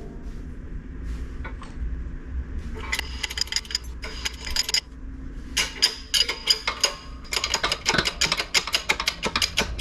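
Hand tools clicking and clinking against metal parts in quick runs of sharp clicks, starting about three seconds in and getting denser near the end, over a steady low hum.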